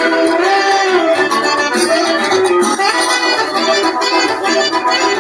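Music with an accordion playing held, sliding melody lines over a steady shaker rhythm, in a Latin American traditional style.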